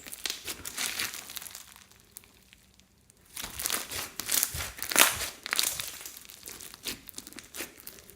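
Crunchy glitter slime mixed with beads and floam being squeezed and worked, giving dense crackling and popping. It goes quiet for about a second partway through, then comes back louder.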